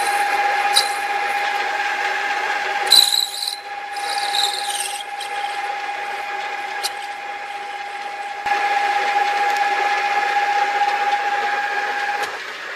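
A 40-year-old metal lathe running with a steady motor whine while a small drill bit cuts into a spinning brass rod. There are short scraping squeals from the cut about three seconds in and again about four to five seconds in, the second falling in pitch. The motor whine stops near the end.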